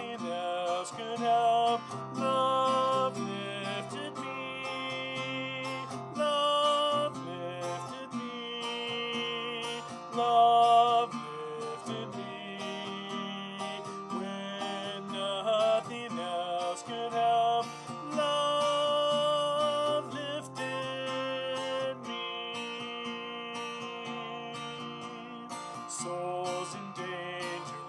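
Acoustic guitar playing a hymn tune in 6/8 time in B flat, with a man's voice singing held notes in places.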